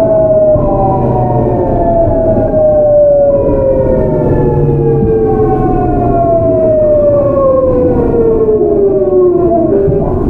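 GEC Alsthom GTO-VVVF inverter and traction motors of a Seoul Metro 8000-series train, whining in several tones that fall steadily in pitch over the rumble of the running gear, with fresh higher tones joining about three seconds in: the train slowing under electric braking.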